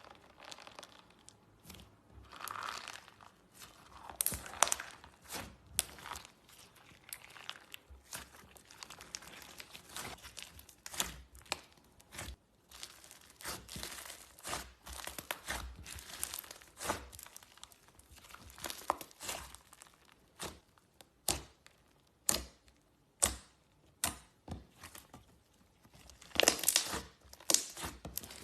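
Slime being squeezed and pressed by hand close to the microphone: an irregular run of sticky crackles, clicks and pops, with a louder cluster of crackling near the end.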